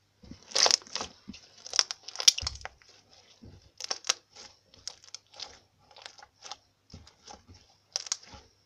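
Hand-kneaded slime squelching and crackling as it is squeezed and pressed, with irregular sharp pops and clicks, loudest in the first two and a half seconds.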